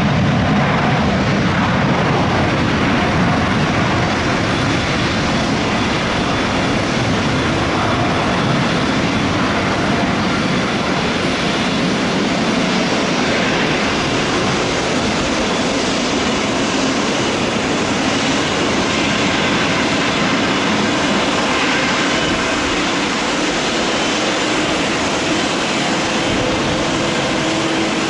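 Twin-engine Boeing 777 jet engines at takeoff power on departure: a loud, steady rush of jet noise with faint whining tones that holds for the whole stretch.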